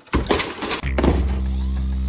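A short clattering, crash-like burst, then a low droning background music track that starts about a second in and holds steady.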